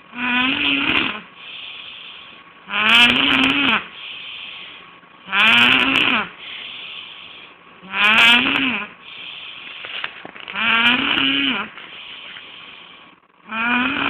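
A man snoring heavily in his sleep: six loud snores, one about every two and a half seconds, each with a quieter breathy sound between.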